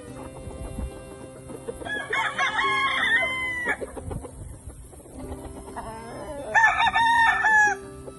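Gamefowl roosters crowing: two long crows, one about two seconds in and a louder one near the end.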